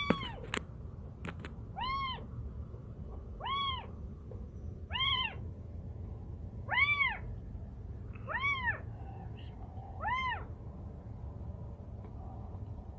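A kitten trapped inside a pipe meowing in distress, seven short arching meows about a second and a half apart that stop a few seconds before the end. A few sharp clicks in the first second and a half.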